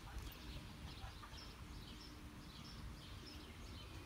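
Small birds chirping in the surrounding trees: many short, high chirps repeating throughout, over faint outdoor ambience with a faint steady low hum.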